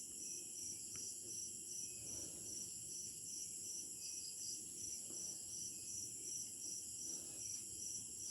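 Night crickets chirping steadily in several high-pitched layers, one of them pulsing about three times a second, with a faint low rustle beneath.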